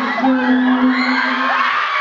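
Audience of fans screaming and cheering, many high voices overlapping, over a steady low hum.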